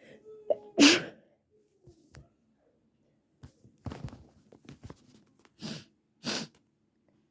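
A person sneezing: a short pitched intake of breath, then one loud wet sneeze about a second in. A ragged run of quieter breaths and sniffs follows, then two more sneezes near the end.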